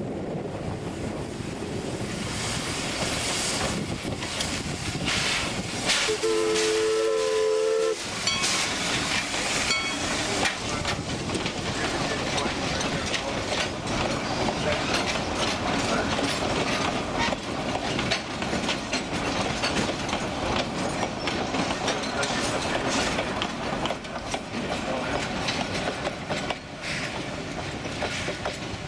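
Narrow-gauge steam locomotive passing with its passenger coaches. About six seconds in its steam whistle blows once for about two seconds, several notes sounding at once. Then comes a steady clatter of wheels clicking over rail joints as the coaches roll by.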